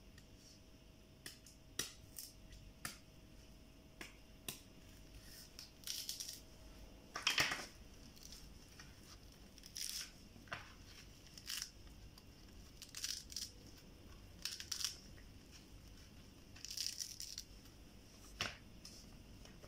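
A kitchen knife shaving and scraping the fibrous white husk off a young coconut: irregular short scraping cuts, the loudest about seven seconds in.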